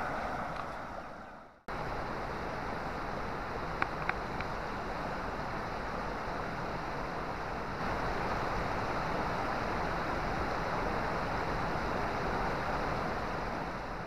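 Steady rushing of flowing river water, with wind noise on the microphone. It drops out briefly just under two seconds in. A few brief high chirps come about four seconds in.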